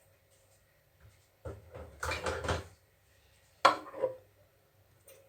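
A metal cooking pot being handled in a kitchen: a scraping, rustling stretch, then a single sharp clank as it is set down, ringing briefly.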